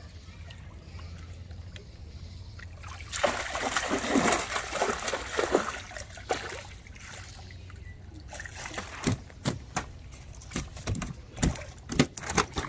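Pond water splashing and pouring off a hand landing net as it is hauled up full of fish, starting about three seconds in. Later comes a run of sharp wet slaps as the netted fish flap.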